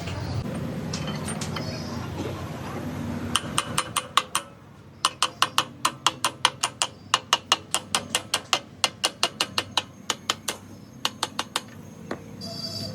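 Hand-tool work on a 2 HP monoblock pump during a bearing change: a long run of sharp clicks, about three to four a second, starting about three seconds in and pausing briefly twice.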